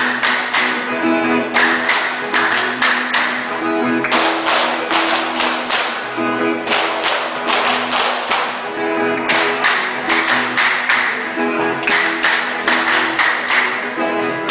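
Violas caipira strummed together in a fast, rhythmic instrumental passage, with sharp percussive strokes on the strings.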